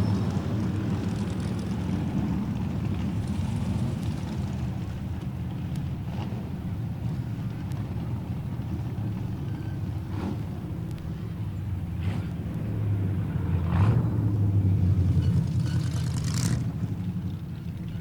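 Several stock car engines running together, a dense low rumble that grows louder in the second half. A few sharp knocks cut through it.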